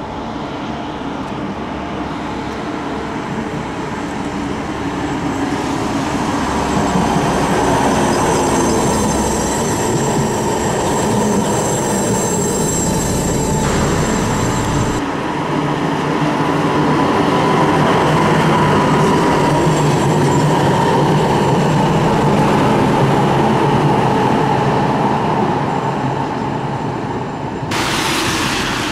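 Electric street tram running on rail: steady rumble of wheels on track with a thin high wheel squeal, the sound changing abruptly twice around the middle and again near the end.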